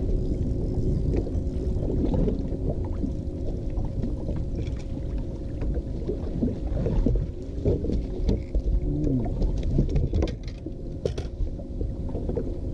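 Wind and water noise on a bass boat's bow with the steady hum of an electric bow-mounted trolling motor, its pitch bending briefly a few times; a few light clicks and knocks about ten seconds in.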